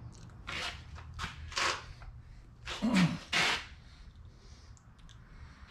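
A handful of short scraping, rustling handling sounds as hands work at a metal machining setup, the loudest two close together about three seconds in.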